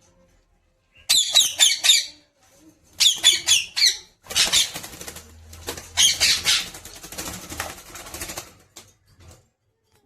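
Pet parrot giving two quick bursts of shrill screeches, several calls each. These are followed by a few seconds of wing flapping with more screeches mixed in.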